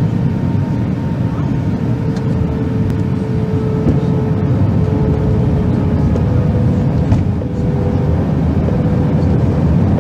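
Steady cabin noise of a jet airliner in descent: a low rumble of engines and airflow, with faint engine tones that shift slightly in pitch.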